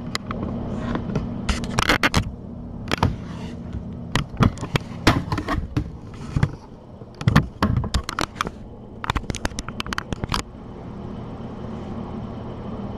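Handling noise from the camera and its microphone being picked up and moved: a run of knocks, scrapes and rustles over a steady low hum, stopping about ten and a half seconds in.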